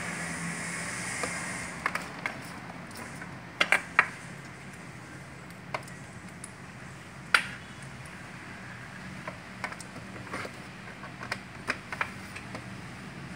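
Cable connectors and a small plastic video adapter clicking and knocking as they are picked up and handled: a dozen or so sharp, irregular clicks, a few in quick succession, over a steady background hum.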